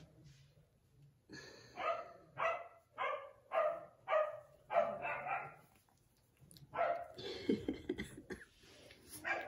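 Four-and-a-half-week-old puppy barking in short, high yaps: a run of about six between about two and five seconds in, then a few more near the end.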